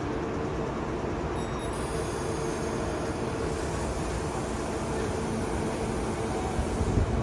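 Electric train running past with a steady rumble of wheels on the rails.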